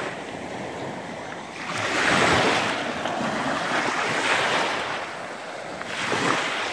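Small sea waves washing up onto a sandy shore, swelling into three louder surges of rushing water, with some wind on the microphone.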